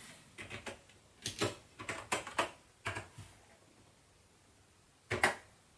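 Keystrokes on a computer keyboard as a command to run the program is typed: a quick string of about eight taps over three seconds, then a single louder key press about five seconds in.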